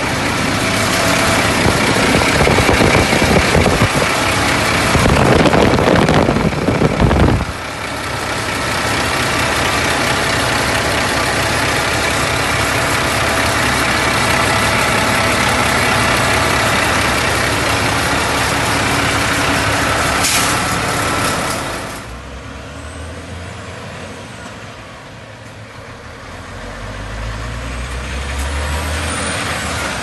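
Renault Kerax truck's diesel engine running at idle, heard up close at the open engine bay. It is louder for the first seven seconds, drops suddenly a little after twenty seconds, and a low engine note rises again near the end.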